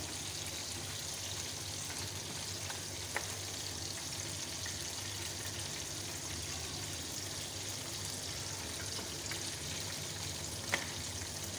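Steady sizzle of hot cooking oil frying, with two faint taps, one about three seconds in and one near the end.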